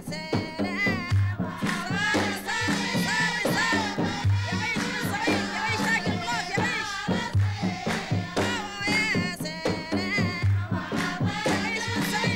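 Dhofari Sawt Silam folk music: women singing together with a wavering vibrato over deep kasir drum strokes and handclaps, in a steady repeating rhythm.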